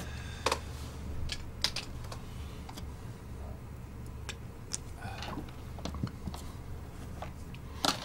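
Irregular, sparse clicks of typing on a laptop keyboard over a low steady hum.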